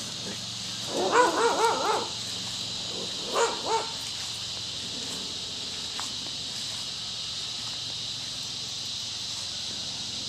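Dog barking: a quick run of about four barks about a second in, then two more a couple of seconds later. Underneath, cicadas in the trees keep up a steady high buzz.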